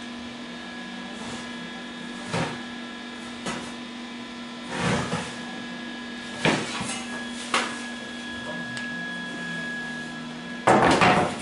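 Knocks and clatter of metal parts and tools being handled in a welding shop, over a steady background hum. There are several separate knocks, and the loudest clatter comes near the end.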